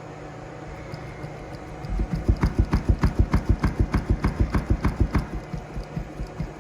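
Open-air subwoofer driven by a very low-frequency test tone, its cone making long strokes that come out as a rapid train of thumps with a sharp tick on each, about six a second. The thumps swell in about two seconds in, then fade away near the end over a steady low hum.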